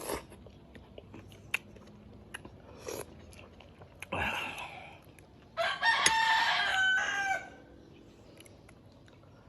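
A rooster crows once, a long call lasting nearly two seconds past the middle. Before it come a few short, soft eating sounds.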